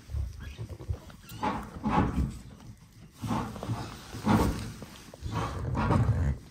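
Sheep bleating several times in short separate calls.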